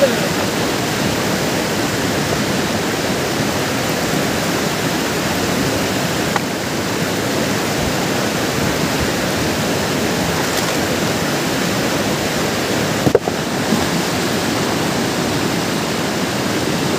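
Fast-flowing mountain river rushing steadily. A short knock sounds about thirteen seconds in.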